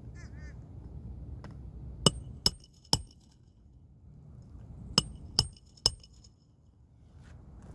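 Two rounds of three sharp taps on a hard surface, each with a short bright ring, the taps about half a second apart.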